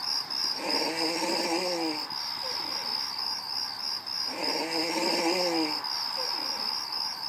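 Snoring: two long pitched snores on the in-breath, about four seconds apart, with fainter breaths between them. Under it runs a steady high chirp that pulses several times a second.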